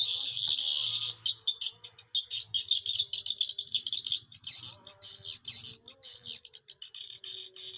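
Swiftlets' calls: a dense, continuous, high-pitched twitter of rapid dry chirps that sounds like a rattle.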